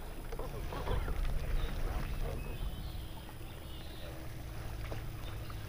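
Low steady hum of a boat on the water, with a few light knocks and splashes in the first second.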